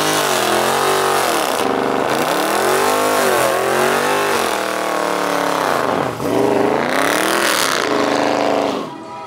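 A car engine revved up and down over and over, each rev climbing and falling back in pitch. The revving stops near the end.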